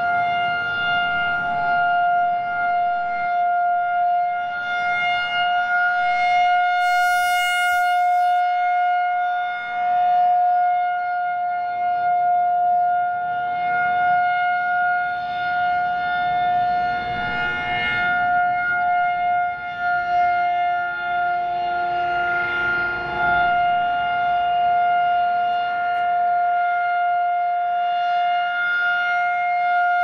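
Federal Signal 2001-130 electronic siren sounding a steady single-pitch alert tone as its horn rotates. The tone sounds brighter and sharper each time the horn turns to face the listener, about seven seconds in and again at the end.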